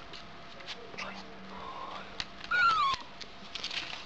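Young pet vixen (fox) giving one high whining squeal that falls in pitch, about two and a half seconds in, while playing over a chew bone, with light clicks and taps before it.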